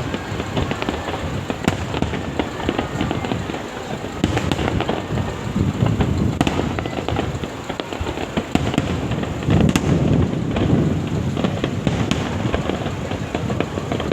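Fireworks going off without a break: a dense crackling with many sharp bangs, heaviest about two-thirds of the way through.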